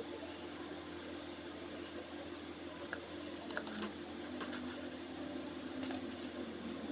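Low steady background hum with a few faint, light taps and clicks as slices of mango are laid into a plastic jelly mould.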